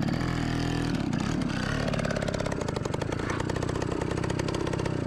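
A motor vehicle's engine running steadily with an even, rapid firing rhythm.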